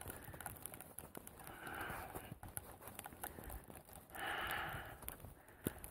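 A hiker's slow, faint breaths, about two and a half seconds apart, with soft footsteps crunching and small clicks in snow between them.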